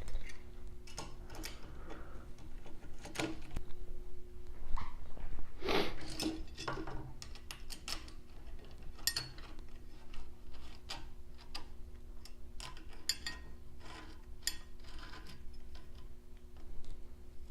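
Irregular small metallic clicks and knocks of screws, T-nuts and an Allen key being handled and turned while bolting parts of a Creality Ender 3 3D printer kit together, with a faint steady hum underneath.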